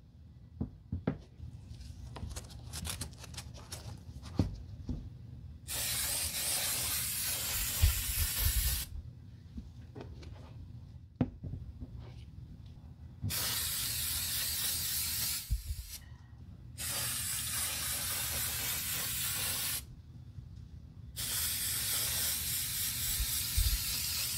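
Spray hissing in four long bursts of about three seconds each, starting and stopping sharply, after a few seconds of light taps and clicks from handling the sneaker.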